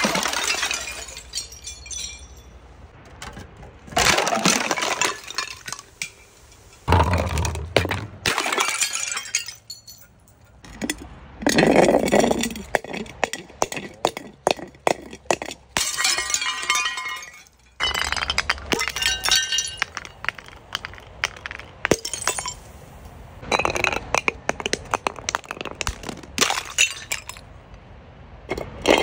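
Liquid-filled glass and plastic bottles and jars tumbling down concrete steps and bursting, one after another: repeated crashes of breaking glass, with clinking shards and splashing liquid, a few seconds apart.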